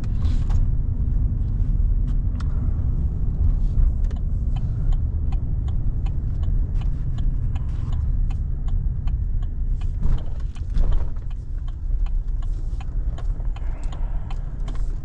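A truck driving slowly in: a steady low rumble of engine and tyres, with frequent small clicks and rattles over it.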